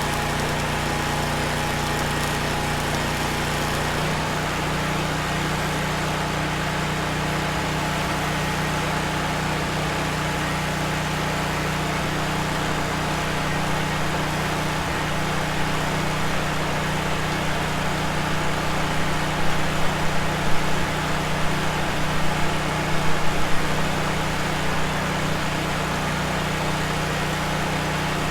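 An engine running steadily at a constant speed, its tone changing slightly about four seconds in, with a stretch of louder, uneven knocks and bumps a little past the middle.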